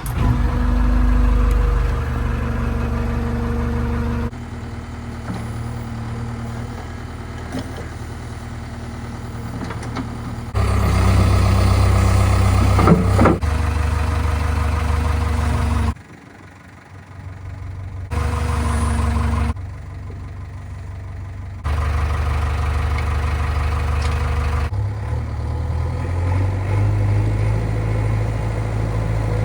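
Diesel engines of a JCB 3DX backhoe loader and a Mahindra 415 DI tractor running. The engine note jumps abruptly in loudness and pitch several times, and there is a brief sharp noise with a short rising whine about halfway through.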